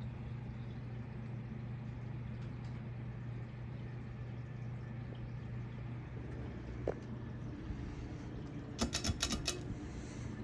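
IKEA ceiling fan running with a steady low motor hum. A single click about seven seconds in, then a quick run of about six clicks near the end.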